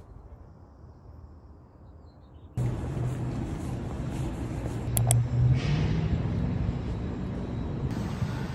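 A couple of seconds of faint low background, then city street noise cuts in abruptly: a steady traffic rumble, with a brief sharp click about five seconds in.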